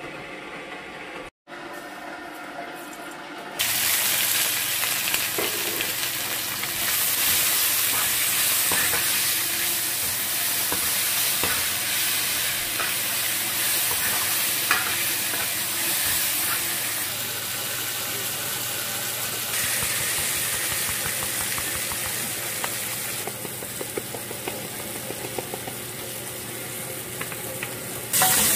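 Sliced red onions sizzling as they fry in hot oil in a metal pan, with a metal spoon stirring and scraping through them. The sizzle comes in suddenly about three and a half seconds in and stays loud.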